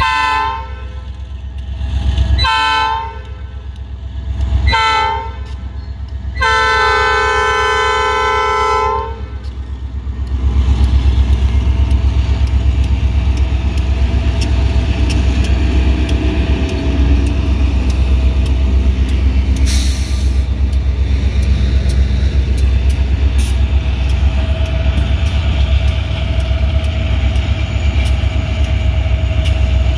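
EMD SD40-2 diesel locomotives blowing the horn for a road crossing: a few short blasts, then one long blast that ends about nine seconds in. After that, the deep steady rumble of the locomotives' diesel engines as they pass.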